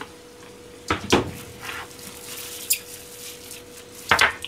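A small rice bowl being covered in plastic cling film and handled on a stainless-steel counter: a few separate knocks and clicks of the bowl against the steel, the strongest about a second in and again near the end, with rustling of the film. A faint steady hum sits underneath.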